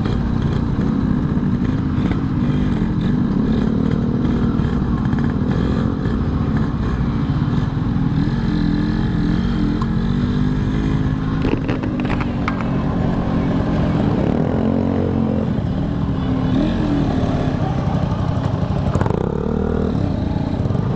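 Yamaha RX-King's two-stroke single-cylinder engine running continuously, its pitch rising and falling as the revs change, with a few short clicks about twelve seconds in.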